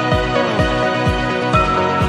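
Background music: an electronic track with a deep kick drum about twice a second under sustained synth chords, with no singing in this stretch.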